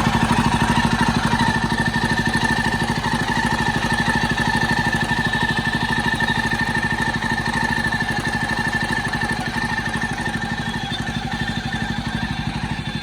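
Jawa 42's single-cylinder engine idling steadily, with a steady whine over the firing pulses. The owner blames the noise on a slack timing-chain tensioner letting the timing chain rattle.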